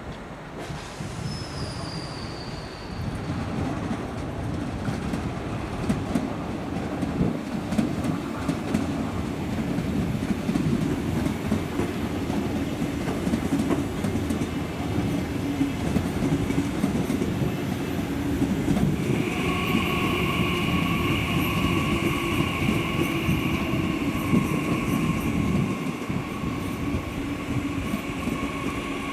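Four coupled DB class 446 Twindexx Vario double-deck electric trains passing at low speed, with a steady rumble of wheels on the rails. From about two-thirds of the way in, a high, steady wheel squeal joins it.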